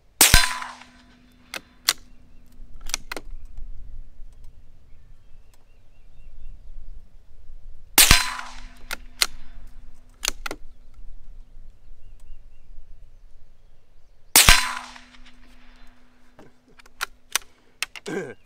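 Three suppressed shots from a Savage Mark II bolt-action .22 LR rifle firing Federal AutoMatch rounds, about six to seven seconds apart. A low steady ring hangs for a few seconds after each shot, and a few lighter clicks follow each one as the bolt is worked.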